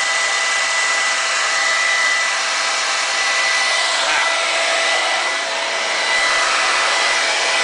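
Handheld hair dryer blowing steadily, a constant rush of air with a faint high whine, heating a motorcycle's vinyl sticker to loosen its adhesive.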